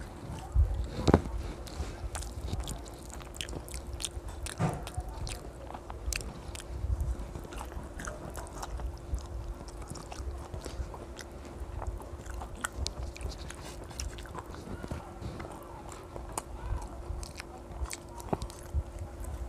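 Close-up sounds of eating rice by hand: sticky, clicking mouth sounds of chewing and fingers squishing and mixing rice with fish-head curry on a plate, in many short irregular clicks. A faint steady hum runs underneath.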